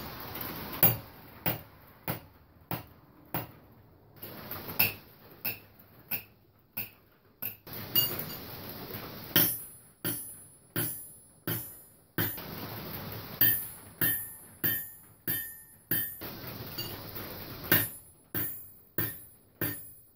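Steel hammer blows on anvils, roughly one to two a second in short runs, each strike leaving a brief metallic ring. The blows land first on a Harbor Freight anvil and then on a railroad-track anvil, both on a wooden stump stand.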